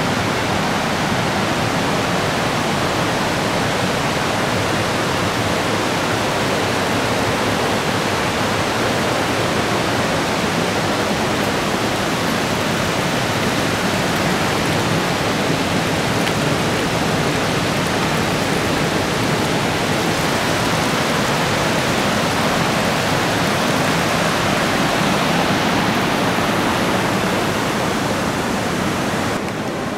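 Steady, loud rushing water, an even unbroken wash of sound.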